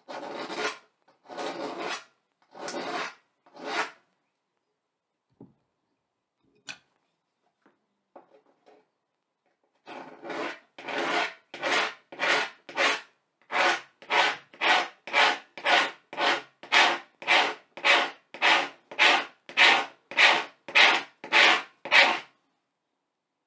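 A hand tool scraping lines into a blackboard in repeated rasping strokes. There are four strokes, a pause of several seconds with a few faint clicks, then a fast, even run of about two strokes a second that grows louder.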